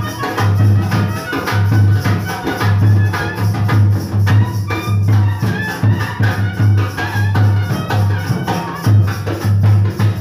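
Background music with a steady beat: a pulsing bass line, shaker-like percussion and melodic instrument lines.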